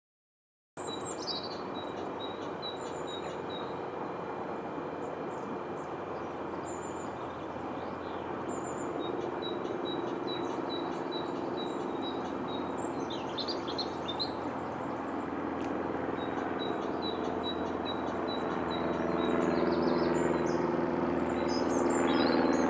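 Small songbirds singing, one repeating a short high note over and over in an even series, over a steady rushing background that grows a little louder near the end.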